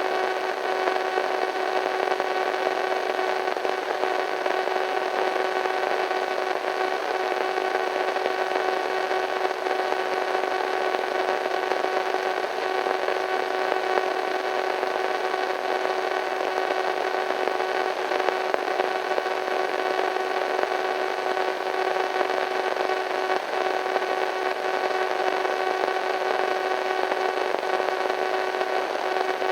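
Radio static from a weak signal: a steady hiss with an even, unwavering whine and its overtones sounding through it.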